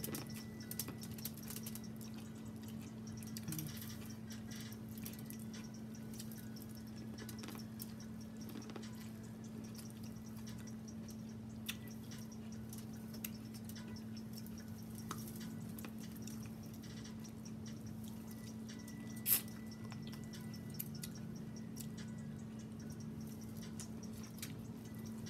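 Close-miked eating: wet chewing and small mouth clicks as a person bites into and chews sauce-coated corn on the cob, over a steady low hum. One louder click about three quarters of the way through.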